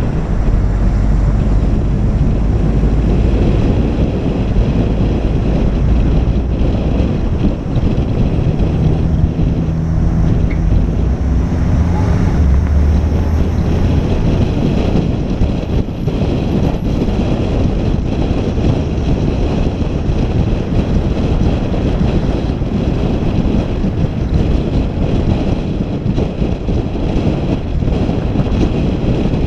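A vehicle driving, its engine and road noise buried under heavy wind buffeting on the microphone. A low engine hum shifts in pitch during the first half, then fades into the steady rush.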